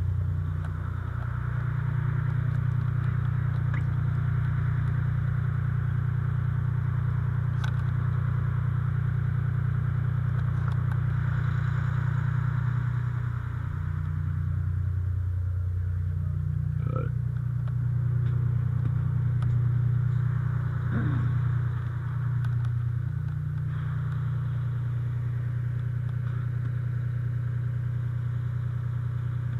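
Fire engine's engine running steadily, its pitch stepping up and down a few times. Two short rising whistles sound briefly about halfway through.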